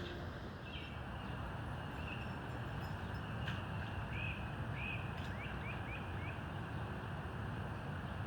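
Birds chirping over a steady hiss of background noise, with a quick run of short chirps in the middle.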